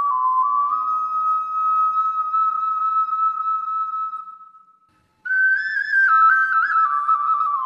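Ocarina playing a slow melody one clear note at a time. A long held note fades out about four and a half seconds in, and after a brief silence the tune picks up again on a higher note.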